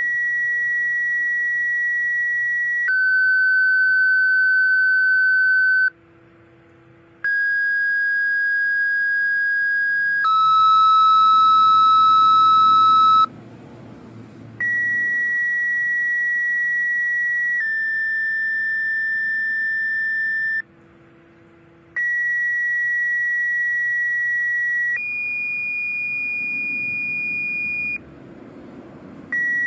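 Two-tone sequential siren activation tones sent over the county dispatch radio channel and heard from a scanner radio. Pairs of steady pure beeps, each held about three seconds and stepping to a different pitch for the second tone, with about a one-second gap between pairs; four pairs, and a fifth begins near the end.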